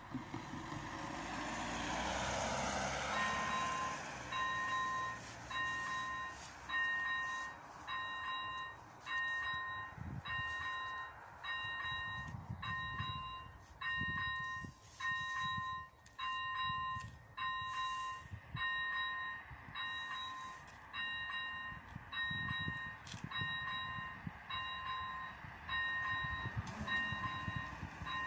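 A car drives past over the first few seconds. Then the Czech level crossing's electronic warning bell starts and dings steadily, a bit more than once a second, as the warning signal for an approaching train while the red lights flash and the barriers come down.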